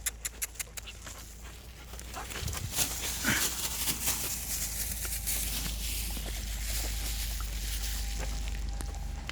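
A dog, with a quick run of sharp clicks in the first second and one short call about three seconds in.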